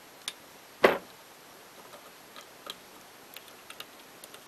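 Clicks and taps of an Allen key working the screws of a rifle scope mount, with one louder knock about a second in and a scatter of small ticks after it.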